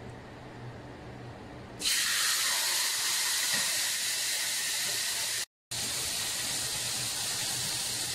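A piece of marinated chicken hits a hot frying pan about two seconds in and sizzles loudly and steadily in the fat.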